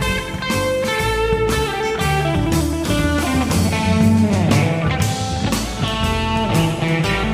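Epiphone 335 semi-hollow electric guitar played through an amplifier: a blues-style run of picked notes, with a wavering string bend about halfway through.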